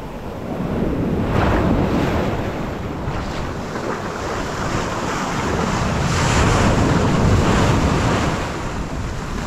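Ocean surf breaking and washing up the sand close to the microphone, a steady rushing that swells twice, loudest about six to eight seconds in as a wave washes right up to it.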